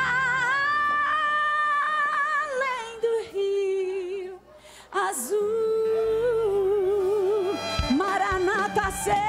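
A woman singing a gospel hymn in long, wordless held notes with vibrato over soft accompaniment, dropping from a high note to lower ones. The music goes almost quiet for about half a second midway, then she picks up again and climbs near the end.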